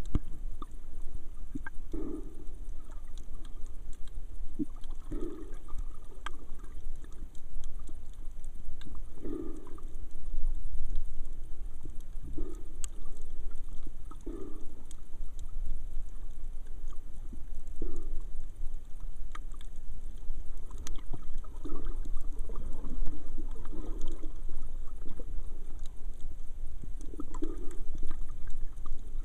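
Muffled underwater sound in the sea: a steady low rumble with soft gurgling swishes of water every two to four seconds.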